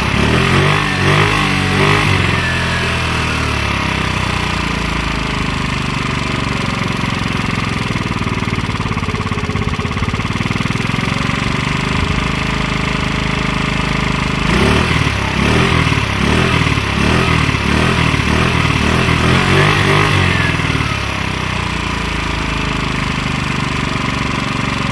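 Small scooter engine with a freshly fitted lighter race variator running steadily, revved up briefly near the start and then revved repeatedly from about the middle to near the end before settling back to idle.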